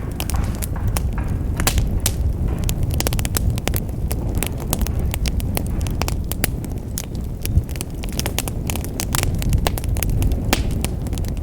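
Wood fire in a fireplace crackling: many irregular sharp pops and snaps over a steady low rush of the burning logs.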